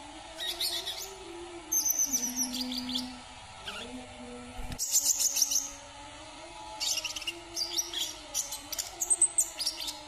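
Sunbird singing in phrases of rapid, high, thin chirps and trills, with short pauses between the groups and a long run of notes near the end.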